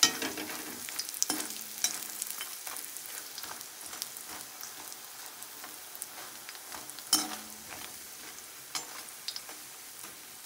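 Makhana (fox nuts) sizzling as they fry in ghee in a steel kadhai while a steel slotted spoon stirs them. The spoon scrapes the pan and clanks against it a few times, loudest at the start and about seven seconds in.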